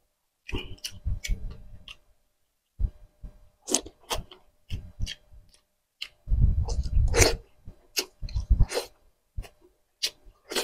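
Close-up eating sounds: fingers tearing flesh from a grilled tuna jaw, then chewing and lip smacks. These come as a run of short clicks and smacks, with a louder, fuller stretch about six seconds in.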